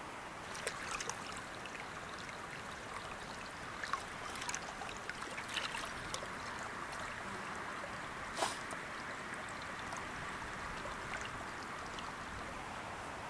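Small stream running steadily, a continuous rush of water with scattered light clicks, the sharpest about eight seconds in.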